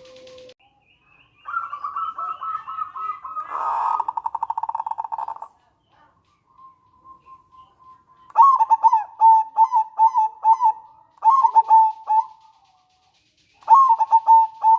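Zebra dove (perkutut) calling: a fast rattling trill (the nretek) for a few seconds, then three bursts of its quick, repeated cooing song (manggung) a little later.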